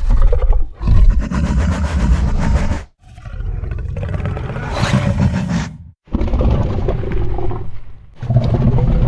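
Kaiju roar made from the Indominus Rex roar sound effect: a string of about four loud, long roars, each lasting two to three seconds, with short breaks between them.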